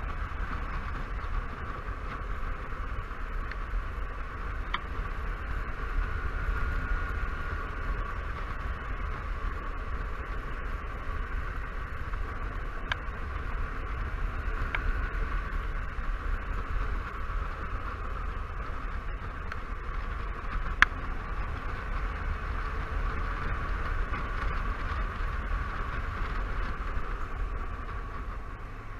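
Honda Silverwing 600 maxi-scooter riding at speed: a steady rush of wind and road noise at the bike-mounted camera, with a deep rumble underneath. A single sharp click about two-thirds of the way through.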